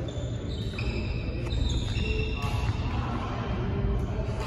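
Badminton rally on an indoor court: rubber-soled court shoes squeak sharply on the floor again and again at different pitches, with a few light racket hits on the shuttlecock, over a constant low hum of the hall.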